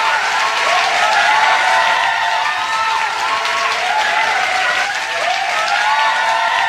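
Crowd applauding steadily, with many voices cheering over the clapping.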